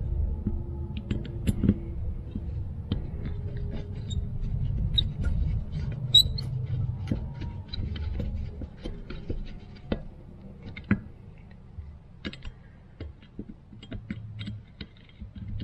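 Small irregular clicks and scrapes of a flat-blade screwdriver turning the idle jets into a Holley 94 carburetor's metal body, over a low rumble that weakens about halfway through.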